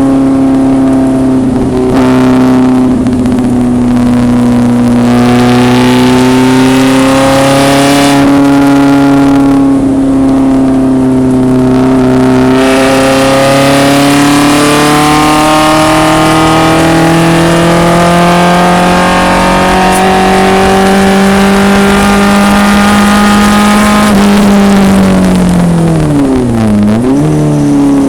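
1974 BMW 2002 racecar's four-cylinder engine heard from inside the car, running hard at high revs. Its pitch climbs slowly under long acceleration, then dips sharply and comes straight back up near the end as the driver shifts. Wind and road noise run underneath.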